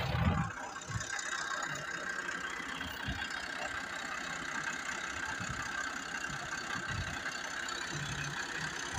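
A farm tractor's engine idling steadily, with irregular low thumps, the loudest right at the start.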